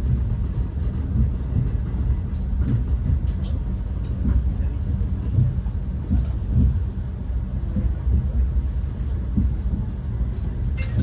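Renfe class 130 (Talgo 250) train running on the rails, heard from inside the carriage: a steady low rumble with a few faint clicks.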